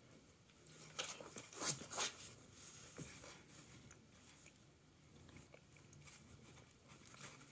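A cat biting and clawing at a feather wand toy while thrashing in a cardboard pizza box: a cluster of sharp crackles and scrapes about one to two seconds in, then softer, scattered rustling.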